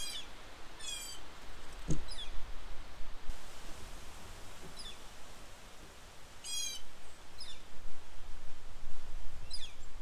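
Small songbirds calling at a feeder: short stacked calls falling in pitch and thin falling whistles every second or two. Low wind rumble runs on the microphone underneath, and there is a single thump about two seconds in.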